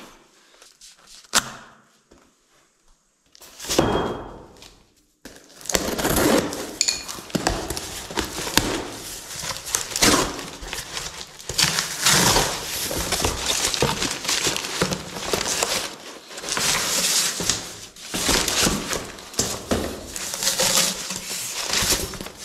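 Packing paper, cardboard and foam wrap rustling and crinkling as a boxed diamond core bit is unpacked by hand. A few short knocks come in the first seconds, and the dense rustling starts about five seconds in.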